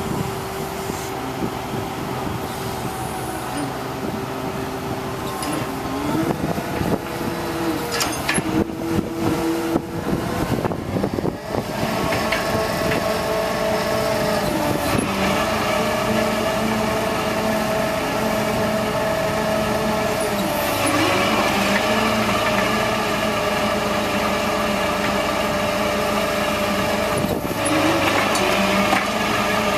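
Diesel engine of a 1999 International digger derrick truck running at raised speed to drive the hydraulic auger as it bores into the ground. The engine note dips briefly and recovers several times as the auger takes load, with some rattling in the middle.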